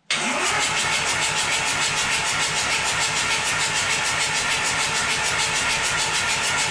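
A 1.9 TDI diesel engine being turned over by its starter motor, cranking in an even rhythm for about seven seconds and stopping without running on. It is the first cranking of a newly swapped engine, turned over to prime the oil and fuel lines before the glow plugs go in.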